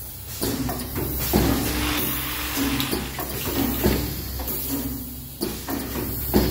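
Vibratory bowl feeder running with a steady hum, white caps rattling and clicking as they travel round its stainless-steel spiral track, over a constant hiss of machinery.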